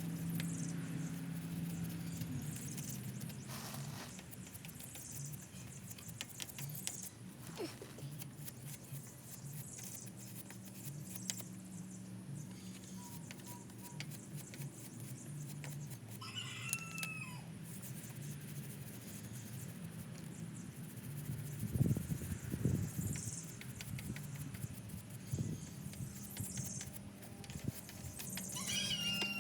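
A bird calls twice, about halfway through and again near the end, over scattered faint scratching and clicking and a steady low hum.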